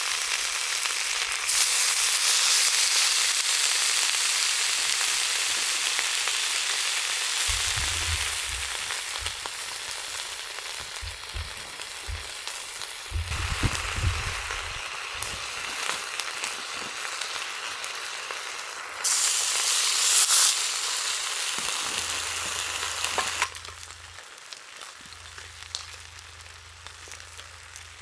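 Food sizzling in a frying pan, a steady hiss that gets louder about a second and a half in, swells briefly near the end and then drops to a softer sizzle.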